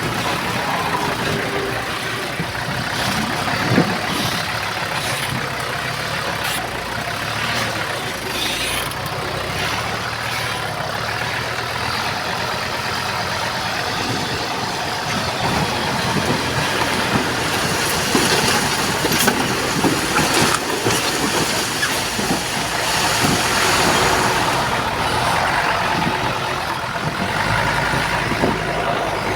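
Diesel engines of heavy earthmoving machinery running steadily, with a few short knocks.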